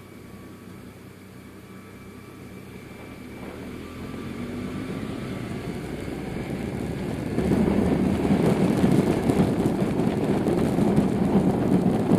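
BMW R1100RS boxer twin engine running as the motorcycle rides along, its pitch rising about four seconds in. From about seven seconds in, a much louder rushing noise, wind on the bike-mounted microphone, takes over and masks the engine.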